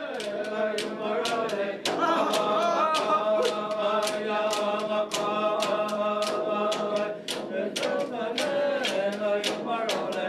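Music: voices singing together in a chant over a steady drumbeat of about three strokes a second.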